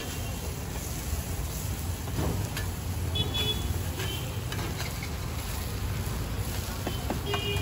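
Steady low rumble of street traffic, with a few brief high-pitched tones. The metal spatula taps and scrapes now and then on the iron dosa griddle.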